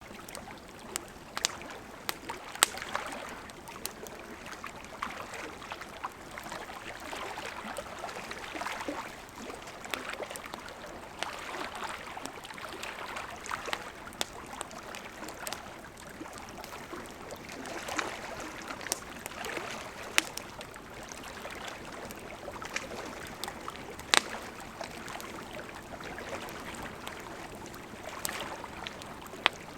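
Campfire crackling, with sharp irregular pops and snaps, over small waves lapping and splashing at a lake shore in a steady rise and fall.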